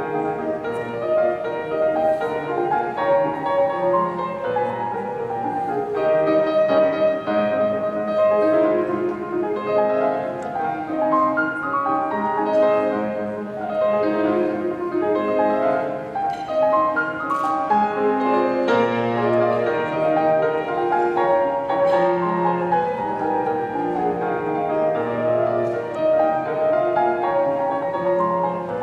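Solo grand piano playing a classical piece: a continuous run of notes over recurring low bass notes.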